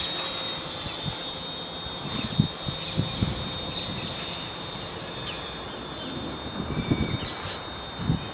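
Gaui 330 XS quadcopter's electric motors and propellers whining steadily in flight, slowly fading as it climbs away. There are a few low thumps of wind on the microphone.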